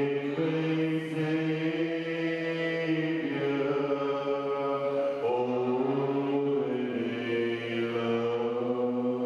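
Congregation singing a slow hymn together, holding long notes that change pitch every two seconds or so.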